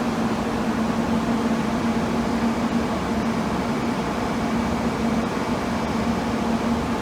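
Steady mechanical hum with a constant low tone over an even noise bed, unchanging throughout.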